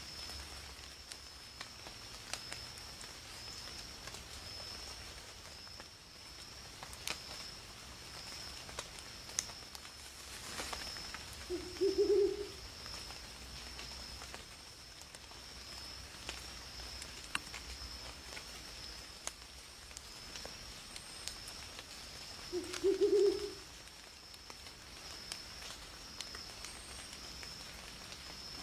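An owl hooting twice, about eleven seconds apart, each a short low hoot, over a steady high-pitched tone in the background.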